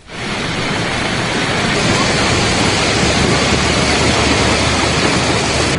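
Steady, loud rushing of floodwater flowing along a waterlogged street, starting suddenly at the beginning.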